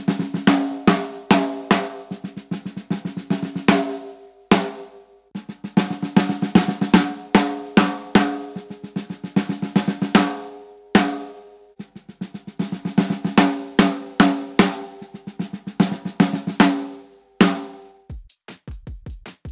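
Snare drum played with sticks in three short passages of quick strokes and runs, one on each of three Evans double-ply coated heads: G2, UV2 and the thicker ST, each giving a fairly dry, warm, low tone with little ring. Near the end, a steady beat of low thumps begins.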